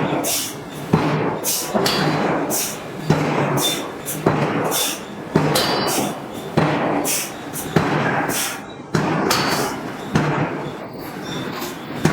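Hydraulic forging hammer striking a hot steel billet in a steady rhythm, about one blow a second, each blow a sharp impact followed by a hissing tail.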